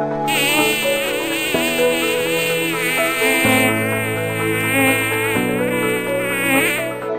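Fly buzzing sound effect: a loud, wavering high buzz that starts just after the beginning and cuts off just before the end, over background music with slow chord changes.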